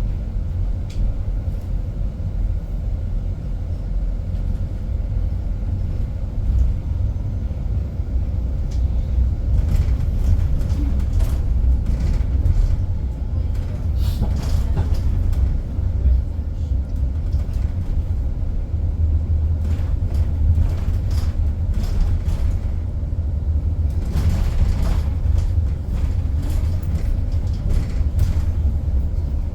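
Driverless bus in motion, heard from inside the cabin: a steady low rumble, with scattered light rattles and clicks.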